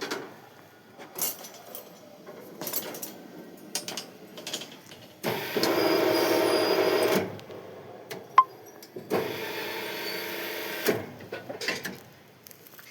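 An electric workshop machine motor runs in two bursts of about two seconds each, about five and nine seconds in, with scattered metal knocks and a sharp click between them.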